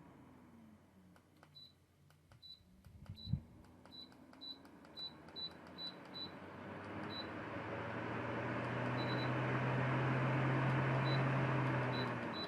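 MYCARBON MF07 table fan beeping at each button press, about two beeps a second, with one thump a few seconds in. Then the fan speeds up to a loud rush of air over a steady low motor hum, which drops off suddenly near the end.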